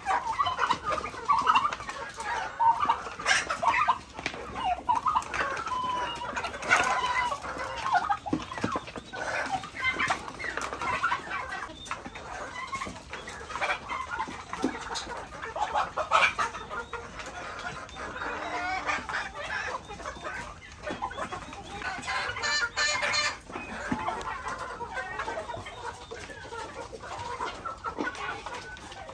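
Chickens clucking and calling, a constant stream of short overlapping calls, with a quick run of rapid calls about two-thirds of the way through.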